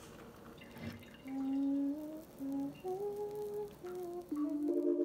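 A voice humming a short tune in separate held notes that step up and down in pitch. Just before the end, steady music chords begin.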